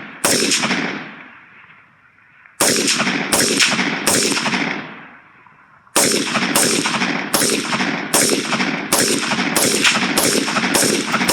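AR-15 rifle fired semi-automatically: a single shot, then three shots about two-thirds of a second apart, then after a pause a steady string of about nine shots at roughly three every two seconds, each shot trailing off in a short echo.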